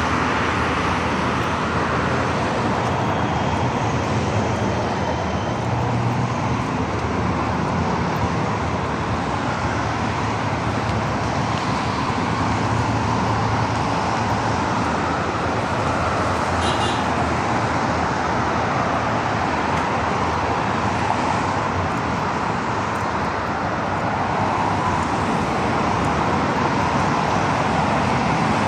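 Steady road traffic on a busy city boulevard: a continuous wash of passing cars and heavier vehicles, with tyre noise and a low engine rumble.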